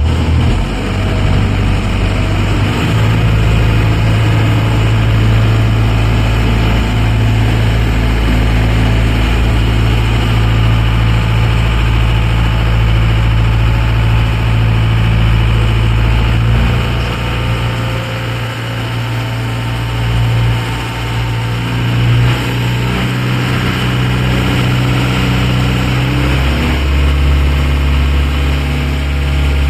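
Ferry engine running with a steady low drone. Its note shifts near the end, as the throttle changes.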